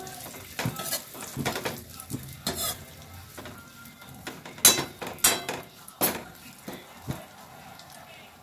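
A metal spatula scraping and clattering against a metal kadhai as dry coconut slices are stirred and fried, with a light sizzle underneath. The strokes come irregularly, loudest in the middle, and thin out near the end.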